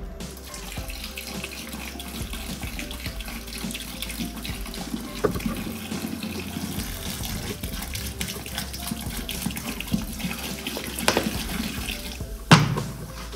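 Coca-Cola pouring in a steady stream from a plastic bottle into a plastic container, the fizzy liquid splashing as it fills. A short loud knock comes near the end.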